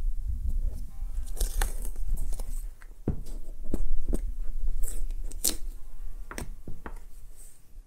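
Masking tape peeled off a rubber boot in short crackly rips and rustles, over low bumping from the boot being handled.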